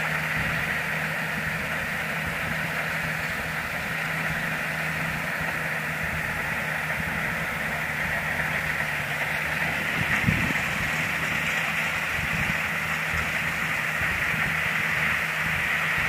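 Kubota DC60 combine harvester's diesel engine running steadily as the machine cuts rice: a constant low hum with a steady high-pitched whine over it.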